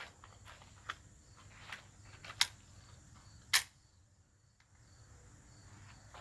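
Four faint, sharp cracks a second or so apart, the loudest about three and a half seconds in, over a faint steady high drone of insects.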